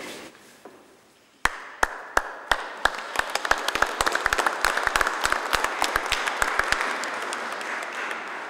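Audience applauding: a few separate claps about a second and a half in, quickly building into steady applause that eases off slightly near the end.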